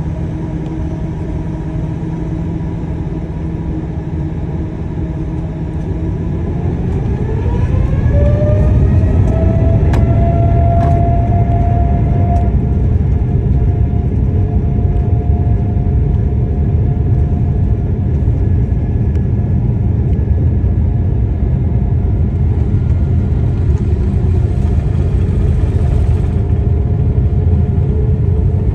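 Boeing 787's jet engines heard from inside the cabin spooling up to takeoff thrust: a whine rises in pitch about six to eight seconds in as the rumble grows louder, then holds at a steady loud rumble as the airliner accelerates down the runway.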